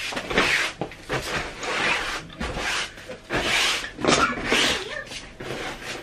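A stiff-bristled broom brushed across a fabric sofa seat in repeated strokes, about one or two a second, sweeping crumbs and debris off the upholstery.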